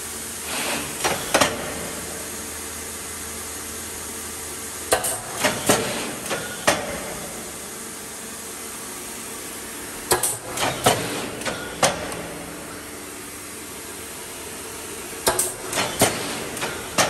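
ILLIG RDKP 54D three-station thermoforming machine running a dry cycle with no plastic sheet: a cluster of sharp metallic clanks and clicks about every five seconds as the stations stroke, over a steady hiss.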